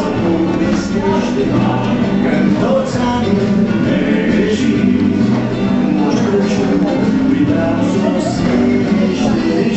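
Background music with singing, playing loud and steady.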